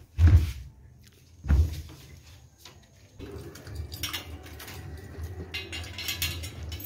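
Two dull thumps about a second apart, then a low steady hum with small clinks and rustles as a steel food bowl is set down and handled on the floor for a puppy.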